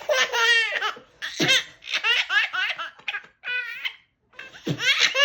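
A baby laughing in repeated high-pitched bursts, with quick breaths between them and a short pause about four seconds in.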